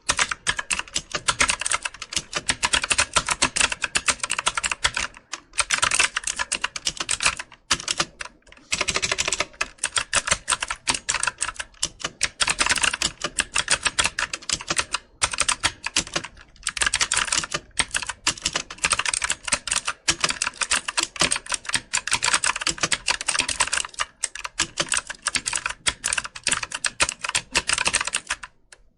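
Computer keyboard typing: fast runs of key clicks in bursts, broken by short pauses every few seconds.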